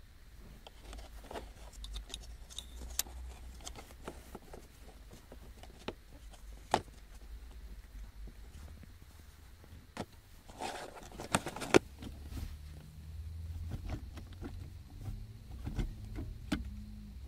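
Scattered clicks and knocks of the plastic reverse-lock collar at the base of a Saab 900's manual gear lever being handled, with a louder clatter about eleven seconds in. Near the end the gear lever is worked by hand, with a low rumble.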